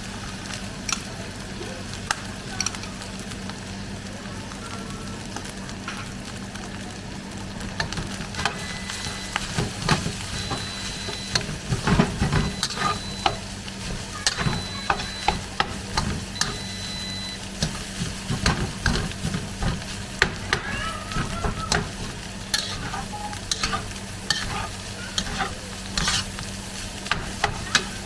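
Garlic fried rice sizzling in a hot pan. From about eight seconds in it is stirred, with the spatula scraping and clicking against the pan many times.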